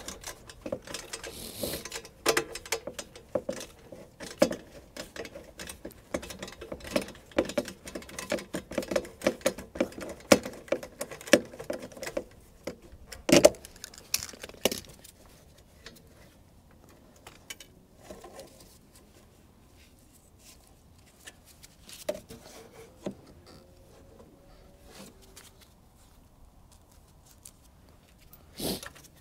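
Hand tool loosening the ground connection of the anti-afterfire solenoid on a Cummins Onan QG 4000 generator's carburetor: a quick run of light metallic clicks and rattles for about the first half, with one louder click, then only a few scattered clicks.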